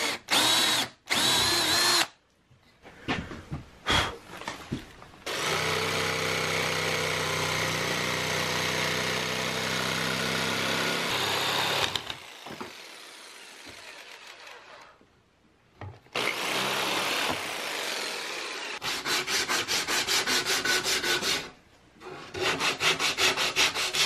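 A drill briefly boring through plywood, then a corded jigsaw running steadily for several seconds as it cuts out notches in the plywood. Near the end, sandpaper rubbed by hand along the cut plywood edges in quick back-and-forth strokes, about four a second.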